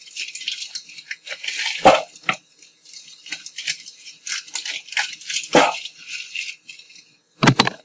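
Wrapper of unsweetened baking-chocolate squares crinkling as it is unwrapped by hand, with a few sharp knocks as the chocolate goes into a stainless steel mixing bowl.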